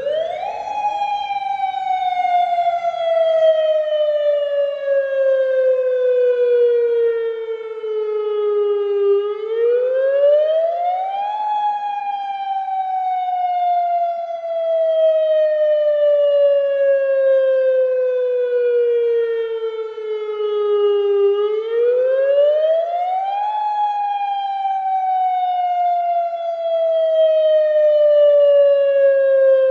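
Federal Signal Modulator 8032B electronic outdoor warning siren starting up and sounding a wail, its Attack signal during a siren test. The pitch climbs quickly, sinks slowly for about nine seconds, then climbs again over about two seconds, repeating about every twelve seconds.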